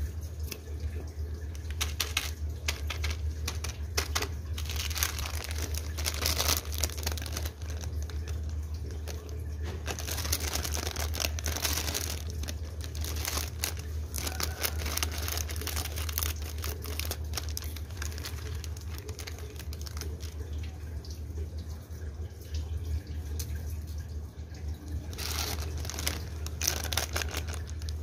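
Metallised plastic Bisconni Cocomo biscuit packets crinkling as they are handled, with scissors cutting into one packet near the middle. A steady low hum runs underneath.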